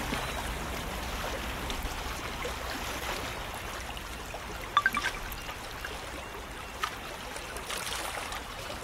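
Steady trickling, lapping water, with a brief cluster of small bright clicks about halfway through.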